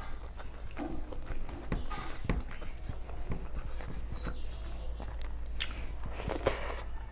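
Close-up eating sounds: chewing of rice and fish curry with wet mouth clicks and lip smacks, repeated irregularly.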